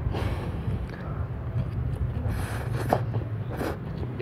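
Pancit canton noodles slurped into the mouth off a fork in several short slurps: one just after the start and a cluster near the end. A steady low rumble runs underneath.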